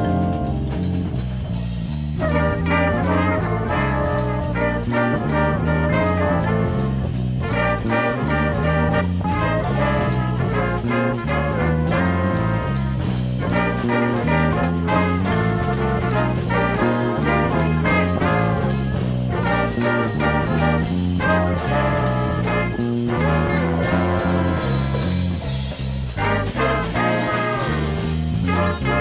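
Jazz orchestra music: a brass section of trumpets and trombones playing over a rhythmic bass line.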